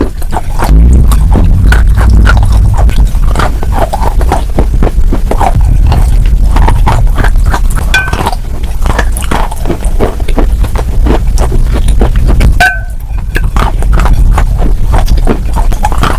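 Crunchy food being chewed close to the microphone: a dense, continuous run of crunches, with a brief lull about thirteen seconds in.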